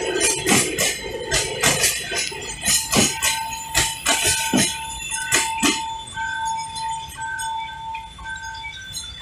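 Freight wagon wheels clacking sharply and rhythmically over rail joints at a level crossing, the clacks stopping about six seconds in. From about three seconds in, the level crossing warning signal sounds a repeating two-tone electronic chime.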